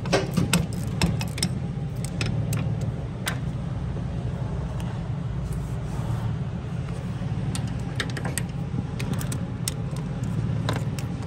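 Sharp metal clicks and clinks of a hand ratchet and socket working the bolts on a Cummins ISX diesel fuel pump loose, several close together about the first second, then scattered. A steady low hum runs underneath.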